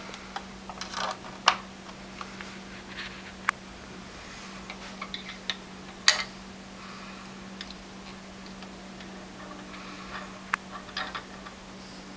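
Scattered clicks and light knocks of hands on the plastic body of a Tivax LSS505 desktop sewing machine as a thread spool is fitted onto the spool pin and the thread is drawn across the top, over a steady low hum. The sharpest clicks come about a second and a half in and about six seconds in.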